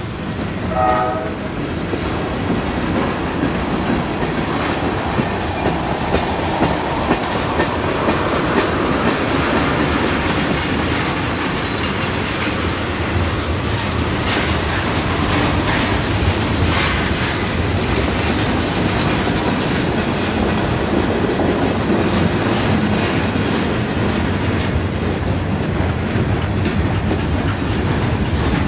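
A freight train's horn sounds briefly about a second in. Then freight cars (covered hoppers, tank cars and gondolas) roll steadily past, their wheels clacking over the rail joints.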